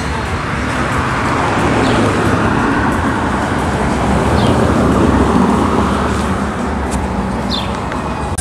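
Street traffic, with a vehicle passing close: its noise builds to a peak about five seconds in and then eases off.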